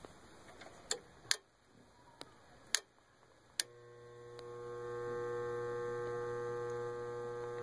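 Several sharp clicks, then about three and a half seconds in a steady electrical hum starts and builds before holding level. This is a furnace induced draft motor energized but not turning: it hums with a locked rotor, drawing about 3 amps against its 1.35 amp rating.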